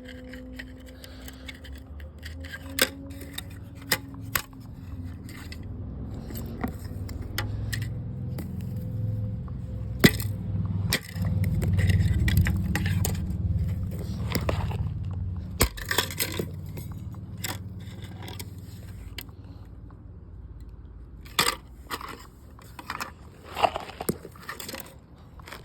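Plastic alarm clock being pulled and broken apart by hand: scattered clicks, cracks and scraping of plastic parts. A low rumble swells and fades in the middle.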